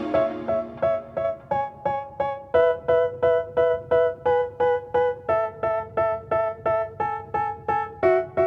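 Background music: an electric piano playing a steady run of short repeated notes, about four a second, with no singing.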